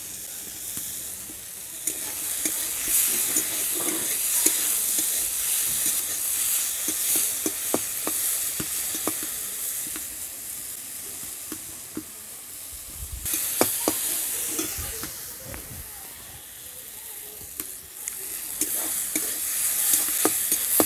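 Chopped tomato, grated carrot and onion sizzling in oil in a metal kadai while a metal spatula stirs them, scraping and clicking against the pan. The sizzle and stirring grow louder about two seconds in, ease off around the middle, and pick up again near the end.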